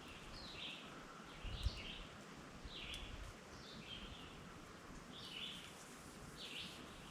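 Faint songbird chirps, short high notes repeating about once or twice a second, over quiet outdoor background noise. A brief low thump comes about a second and a half in.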